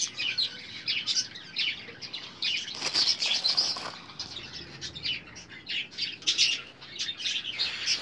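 Many small birds chirping and twittering, with dense, overlapping short high calls, and a brief rustle about three seconds in.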